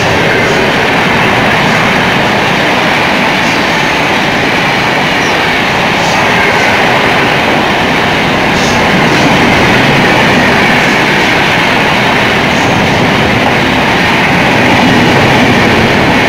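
Indian Railways express coaches running through at speed close by: a steady, loud rushing noise of wheels on rail, with a few faint clicks scattered through it.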